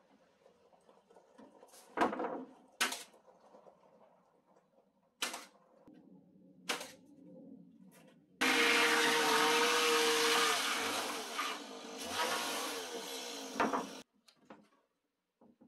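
Timber boards knocking sharply into place four times, then a handheld power tool runs loud and steady for about five and a half seconds and cuts off suddenly.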